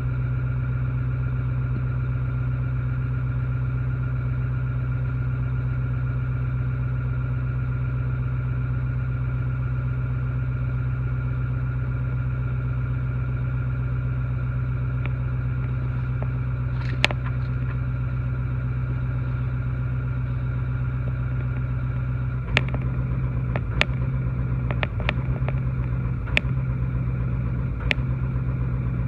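Ford 6.4 Power Stroke V8 diesel idling, steady at first; about two thirds of the way through it starts running unevenly, with several sharp stumbles at uneven spacing. This is the intermittent idle miss and surge the owner is chasing, with fault codes pointing at cylinder 3 misfire and contribution; a replaced injector on that cylinder did not cure it.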